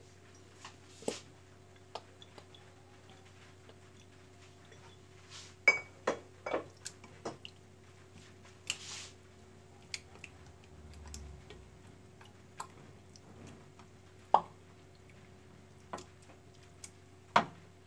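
Hands rubbing and turning raw salmon fillets in a glass baking dish: wet, squishy handling with scattered short taps and plops of fish against the glass, the loudest about six seconds in, about fourteen seconds in and near the end.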